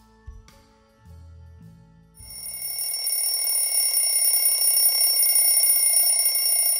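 Quiet background music fades out. About two seconds in, a loud, steady, high bell-like ringing starts and keeps going.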